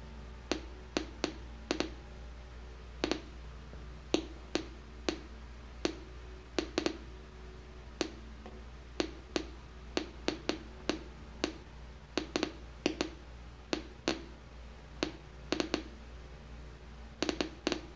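Geiger counter clicking at random intervals, roughly two clicks a second, as it counts beta particles getting through a thin 0.004-inch polyethylene filter from a beta source 10 cm away.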